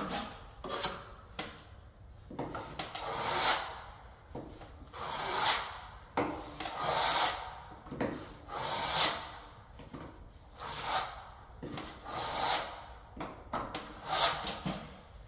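Steel plastering trowel drawn along a wall-to-ceiling corner, spreading stiffly mixed powdered filler over mesh tape: a rasping scrape with each stroke, repeated about every two seconds.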